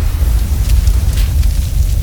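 Sound-effect explosion rumble: a loud, deep continuous low rumble with faint crackling on top, the rolling aftermath of a blast.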